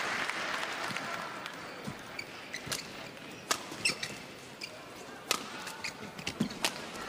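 Badminton rally in a large hall: several sharp racket strikes on the shuttlecock, a second or so apart, with short shoe squeaks on the court floor. Applause dies away at the start.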